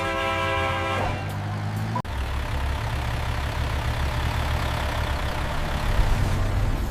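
Large vehicle engine rumbling steadily, swelling a little near the end. A short held musical chord ends about a second in.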